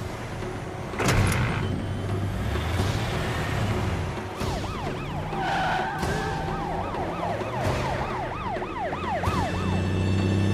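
Fire truck siren in a fast yelp, rising and falling two or three times a second, from about four and a half seconds in until near the end, over the heavy rumble of truck engines. A sharp bang about a second in, and a short steady horn tone partway through the siren.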